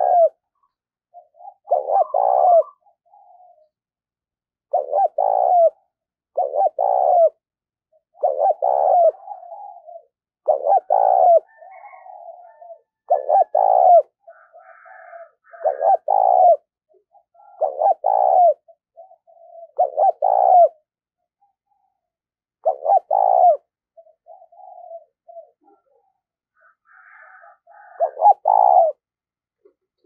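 Caged decoy spotted dove cooing: a short, two-part coo phrase repeated about every two seconds, with a longer pause a little after two-thirds of the way through before one last phrase near the end.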